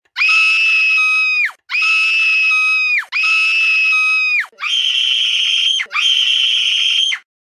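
A cartoon boy's high-pitched voice screaming five times. Each scream is held about a second and drops in pitch as it ends, and the last two are pitched higher.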